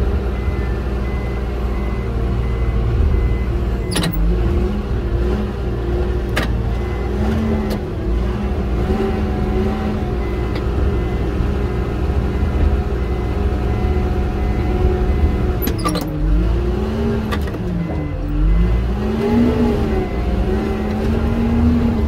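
Bulldozer's diesel engine running, heard from the cab, its pitch rising and dipping as the track is driven. A few sharp clicks stand out over it.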